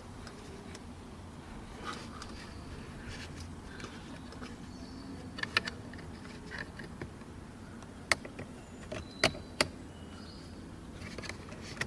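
Small clicks and rattles of plastic trim and a cable being handled as the brake-release cable is threaded through a hole in the dashboard switch housing. A few sharp clicks stand out, most of them in the second half.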